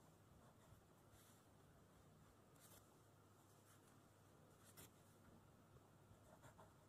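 Near silence, with faint, scattered scratches of a pen writing on paper.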